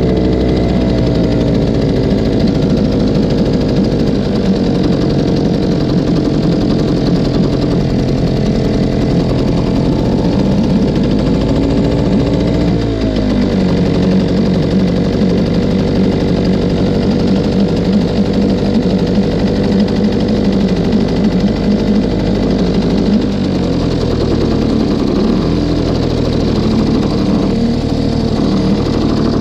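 Sea-Pro T3S two-stroke outboard motor running on its first start after winter storage, its speed settling down at first, then dipping and picking up again about halfway through and a few times near the end.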